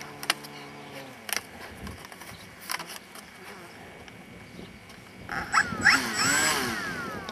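A few sharp clicks and knocks, then, about five seconds in, a loud stretch of animal calls whose pitch slides up and down in overlapping arches.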